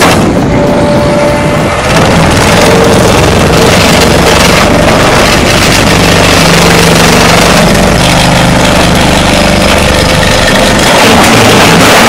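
Xcentric Ripper XR40 hydraulic ripper attachment on an excavator hammering into concrete rubble: a continuous, very loud, rapid rattle of impacts, with the excavator's engine running underneath.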